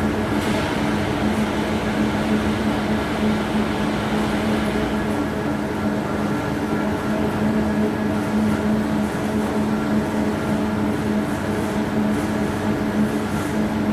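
Steady mechanical hum of running production-hall machinery, with several steady tones; a hiss rides over it for the first few seconds and then fades.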